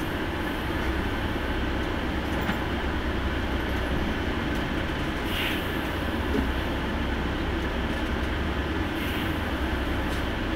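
An intercity coach's diesel engine and road noise heard from inside the cab: a steady low rumble, with a faint short hiss twice.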